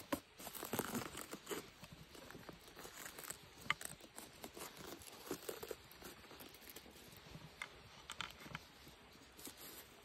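Knife cutting and coring a green bell pepper on a wooden cutting board: irregular crisp snaps and tearing of the pepper's flesh, with a few sharper clicks.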